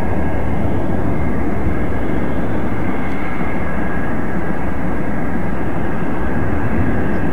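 A DC-9's rear-mounted jet engines running on a low final approach: a loud, steady rumble with a faint high whine held at an even pitch.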